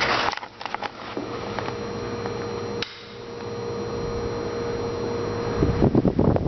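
1950s Hunter Zephair oscillating desk fan switched on with a click about three seconds in, its motor and blades whirring louder as they come up to speed, running smoothly. Near the end the fan's air blows across the microphone, adding a loud rumbling buffet.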